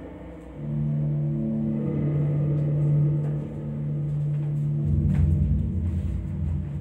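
Live amplified drone music. A sustained low note with a few overtones enters about half a second in, and a deep rumbling bass joins near five seconds in.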